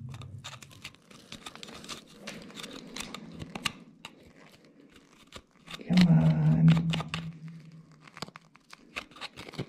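Thin steel rod prying and scraping at hard pegmatite rock around a beryl crystal: scattered gritty scrapes, ticks and crunches as the rock is worked loose. A short hummed voice sound about six seconds in is the loudest thing.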